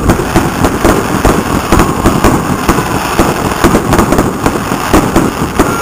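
Aerial fireworks shells bursting in a rapid barrage of bangs, several a second.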